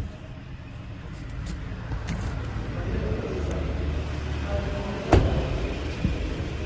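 Hyundai Sonata engine running at idle just after a normal start, a steady low rumble that shows the ignition and cranking fault is cured. A single sharp click about five seconds in.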